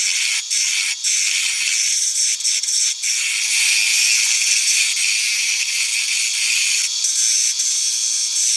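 A turning tool cutting a spinning wood blank on a Central Machinery 10x18 mini wood lathe, a steady rasping hiss of shavings coming off the wood. For the first few seconds it breaks off in short gaps about twice a second, then runs continuously.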